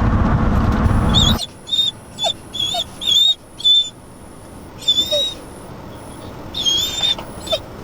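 A dog whining in about a dozen short, high-pitched whimpers that bend in pitch, the sound of an excited, wound-up dog. Before this, about a second and a half in, steady vehicle road noise cuts off abruptly.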